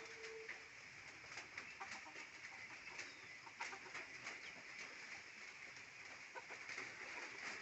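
Local chickens clucking faintly, over a steady hiss with many small scattered ticks.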